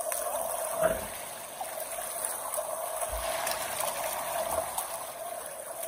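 River water running steadily.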